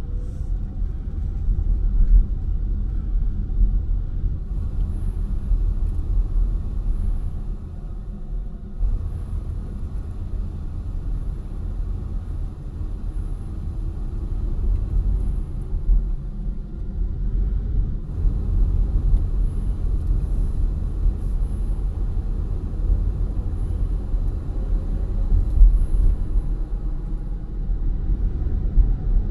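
Road and tyre rumble of a Volvo XC40 Recharge on the move, heard inside the cabin: a steady low rumble. A faint high whine comes and goes.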